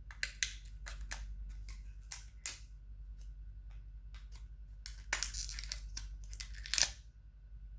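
A phone and its packaging being handled: scattered small clicks and taps, a noisy rustle about five seconds in, and a sharper crunch near the end.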